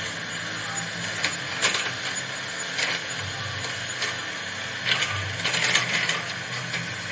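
Radio-controlled toy excavator's small electric motors and plastic gearboxes whirring steadily as it drives on its tracks over gravel, with several sharp clicks along the way.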